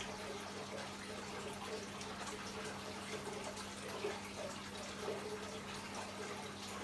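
Aquarium water trickling and dripping steadily, as from a filter return, over a steady low hum.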